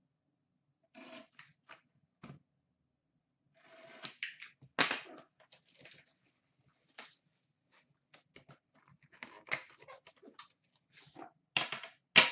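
A sealed box of hockey cards being unwrapped and opened by hand: irregular crinkling of its plastic wrapper and cardboard, with scattered clicks and rustles. The loudest crackles come about five seconds in and just before the end.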